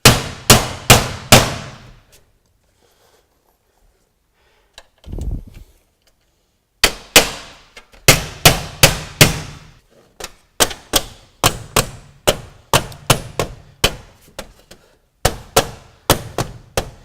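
Hammer blows on a steel ridge cap as it is fastened over the ridge, each strike a sharp clang that rings briefly. Four quick blows, a duller knock about five seconds in, then a steady run of blows at about two to three a second.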